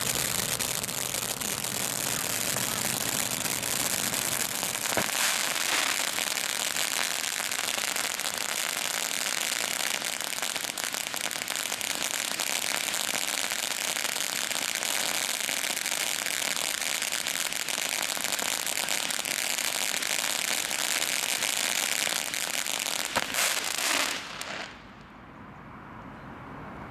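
Hokus Pokus ground firework fountain burning: a steady, loud hissing spray of sparks with a fine crackle. A few sharper pops come near the end, then it cuts out suddenly as the fountain burns out.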